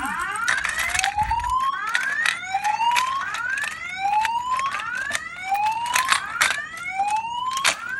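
Wheelock E60 fire alarm speaker strobe sounding the whoop evacuation tone: repeated rising sweeps, a new one about every second and a half, with overlapping sweeps and sharp clicks throughout.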